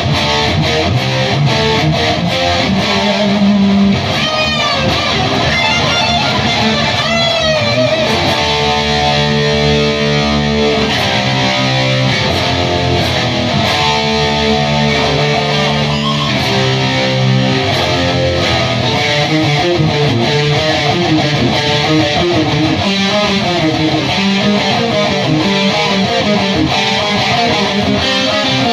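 Electric guitar played through a Bugera 333XL valve amp head on stock tubes into a Mesa speaker cabinet, playing the riffs of a song. A few bending high notes come about four to eight seconds in, followed by repeated low notes.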